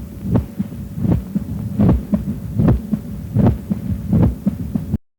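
Recorded heart auscultation of the quail rhythm (ritm perepela), the three-part rhythm typical of mitral stenosis. Each cycle has a loud, flapping first heart sound, a normal second sound, and an added sound from the mitral valve, the opening snap. The beats come about every 0.8 s over a low hum and stop abruptly about five seconds in.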